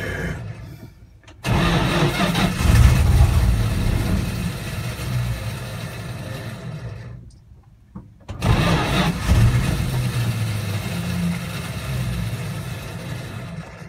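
Cold start of a 1975 Dodge Power Wagon's water-damaged engine. It fires suddenly about a second and a half in, runs for about five seconds and dies. It starts again about eight seconds in and runs until it cuts off near the end.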